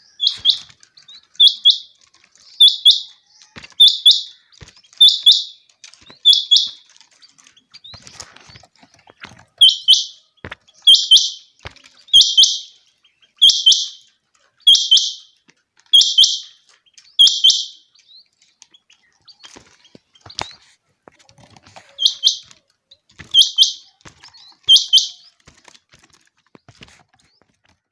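Common quail song: short, sharp, high-pitched calls repeated about once a second in three runs of six, seven and three, with pauses between the runs.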